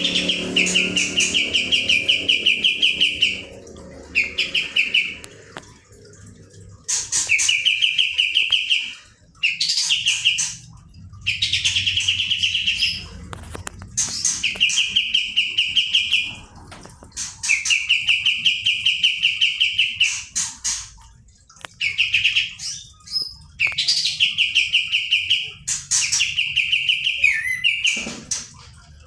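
A kapas tembak songbird singing loud, rapid rolling trills in phrases a couple of seconds long, repeated with short pauses between them.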